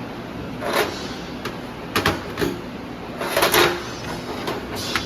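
Laser welding machine firing in about five short, hissing bursts of uneven length, the longest and loudest a little past the middle.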